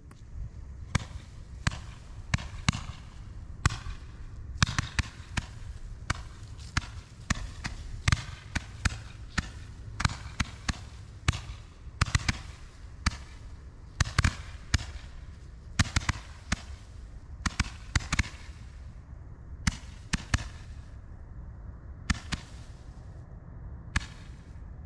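Purple Dragon fireworks, five fused together in a tube, going off in a long irregular string of sharp bangs, roughly one to three a second, that stops just before the end.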